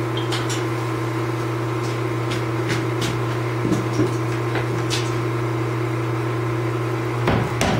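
Steady electric hum with a few faint clicks. Near the end, a power hammer starts striking a white-hot Damascus billet in rapid blows, forge-welding the stacked layers together.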